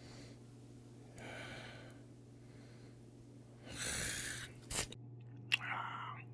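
Close-miked eating sounds: soft breaths and chewing over a low steady hum, with a stronger breath or rustle around four seconds in and two sharp clicks shortly after.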